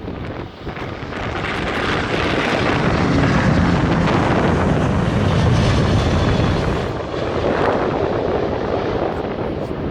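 Airbus A380's four jet engines roaring on its takeoff run. The roar builds over the first couple of seconds, peaks mid-way, then slowly fades as the jet passes.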